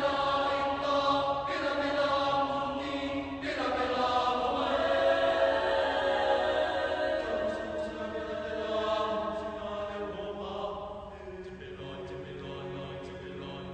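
Mixed-voice high school chamber choir singing a cappella in sustained chords. A new phrase comes in about three and a half seconds in, and the singing grows softer over the last few seconds.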